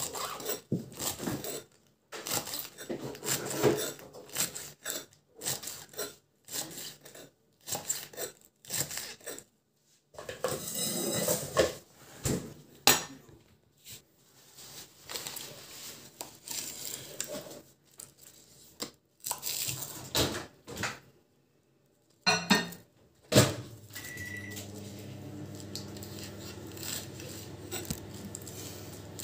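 Kitchen knife chopping lettuce on a wooden cutting board: quick irregular knocks of the blade through the leaves onto the board, with short pauses between runs of strokes. From about two-thirds of the way in, a steady low hum runs underneath the fainter chopping.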